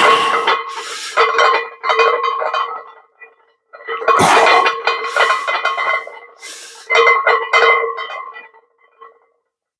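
Barbell loaded with about 315 lb of iron plates clanking and ringing during back squat reps. The sound comes in three bursts, each opening with a loud clank, with short gaps of near silence between them.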